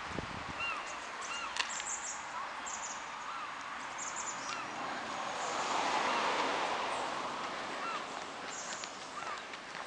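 Birds calling: short, thin, arching notes repeated every half second to a second, with brief high chirps in between. A rushing noise swells for a few seconds in the middle and fades.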